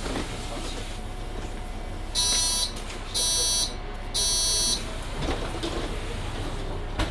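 Three evenly spaced electronic beeps, each about half a second long, from the door warning signal of a Mercedes-Benz Citaro C2 hybrid city bus, sounding as the doors are about to close, over the bus's low steady hum.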